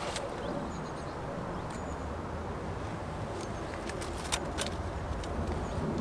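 Steady low outdoor rumble, with a few sharp clicks and taps from a small fish being handled and unhooked off a fishing pole's line, most of them between about three and a half and five seconds in.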